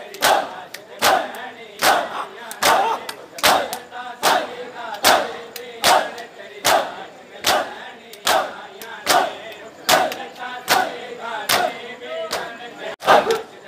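A crowd of mourners doing matam, striking their bare chests with open hands in unison at a steady beat of about one strike every 0.8 seconds. Massed male voices cry out between the strikes.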